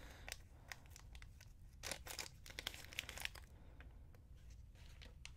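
Small clear plastic bead bag crinkling and rustling faintly as it is handled and opened, busiest about two to three seconds in.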